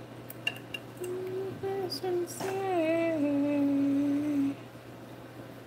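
A person humming a short tune: a few notes, then one long held lower note that stops about halfway through. Light clicks of metal tongs on a ceramic plate come in the first second and again mid-hum.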